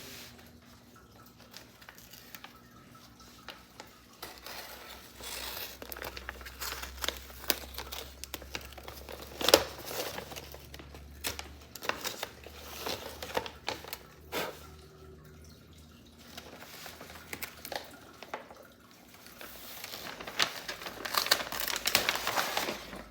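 Wrapping being handled and pulled open by hand: irregular crinkling and rustling with scattered clicks, growing busier and louder near the end.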